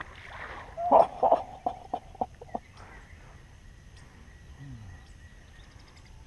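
A hooked bass splashing at the water's surface, followed about a second in by a quick, irregular run of sharp slaps and clicks lasting under two seconds.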